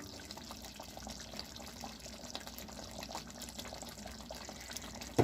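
Pot of beef stew in tomato sauce simmering on the stove, with a soft crackle of many small bubbles popping. A single short knock comes at the very end.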